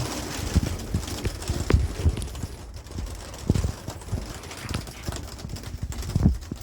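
Steady rain hiss with irregular low thumps and knocks.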